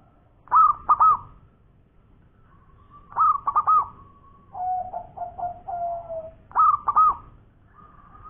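Zebra dove (perkutut) cooing: three loud phrases of quick arching notes, about a second, three seconds and six and a half seconds in, with a lower rolling trill between the second and third.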